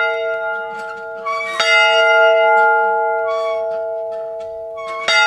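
A large camp bell being rung as a wake-up call, each stroke ringing on in a long, steady chord of tones. It is struck about one and a half seconds in and again near the end, while the ring from a stroke just before still sounds.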